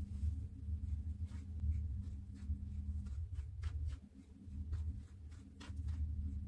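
A metal spoon stirring dry semolina and flour in a glass bowl: a run of irregular light scrapes and clicks against the glass starting about a second in, over a steady low hum that drops out briefly near the middle.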